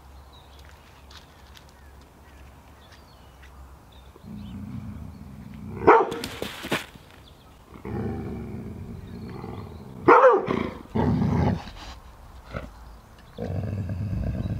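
A dog growling and barking: low growling starts about four seconds in, with two loud barks about six and ten seconds in.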